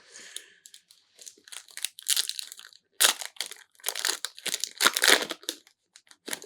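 A foil trading-card booster pack wrapper being crinkled and torn open by hand: irregular crackling and ripping in several clusters, the busiest from about three to five seconds in.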